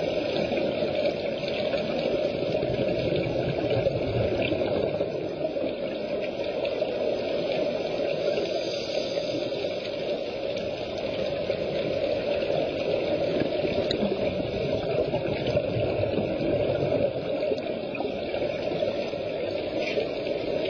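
Steady rushing water noise recorded underwater, with the bubbling of divers' exhaled air.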